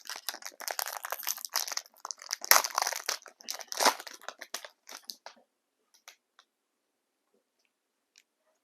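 Crinkling and rustling of a trading-card pack wrapper being handled and torn open, in bursts for about five seconds, then a few faint ticks.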